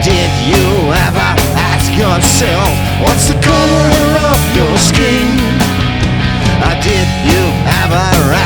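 Rock band playing a song, with a steady bass and drum bed under a melodic lead line that bends in pitch.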